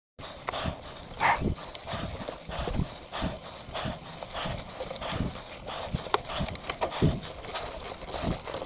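Mountain bike on a loose dirt trail: a run of dull knocks about twice a second over crunching and rattling, starting abruptly.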